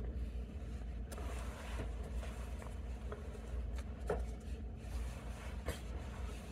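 Masking tape and a brass hinge being handled: a few small clicks and rustles over a steady low rumble.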